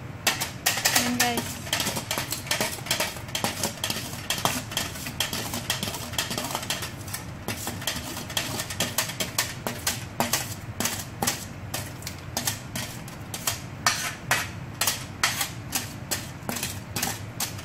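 A metal spoon knocking and scraping against a metal colander of soaked rice as the rice is tipped into a pot of water, making rapid, irregular clinks and clicks.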